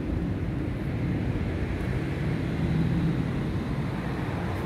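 Steady low background rumble of outdoor urban noise, with no distinct events.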